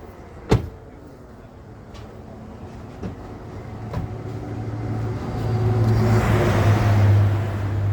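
Motor vehicle engine in jammed traffic: a steady low hum that grows louder from about five seconds in, with a rushing noise swelling as it comes close. A single sharp click about half a second in.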